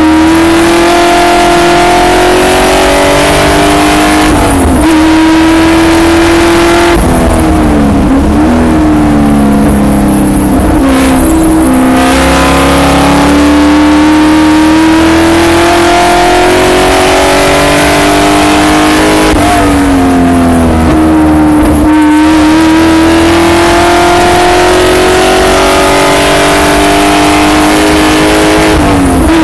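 Onboard sound of a Spec Corvette's V8 race engine at full throttle, its pitch climbing steadily and dropping sharply several times at gear changes and lifts, over steady wind and road noise.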